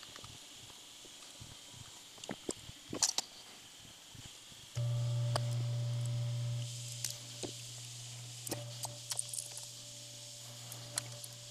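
Small metal clicks and taps of hex keys and screws being handled against a 3D printer's aluminium bed plate. About five seconds in, a steady low hum starts suddenly. It drops in level a couple of seconds later and then carries on.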